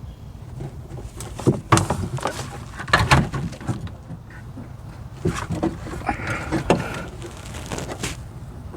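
Irregular knocks and clicks of hands working a door latch cable into place inside a car door, with a brief scraping sound about six seconds in, over a steady low hum.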